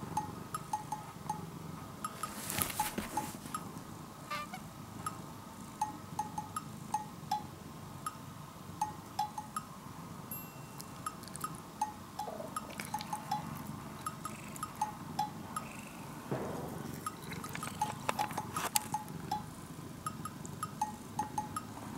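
Light, cute background music of short plinking notes. A small bell on a cat's collar jingles a few times, about three seconds in and again around eighteen seconds in.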